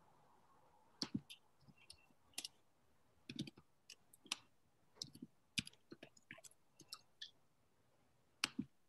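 Faint, irregular clicking of typing on a computer keyboard, a couple of keystrokes a second with short pauses.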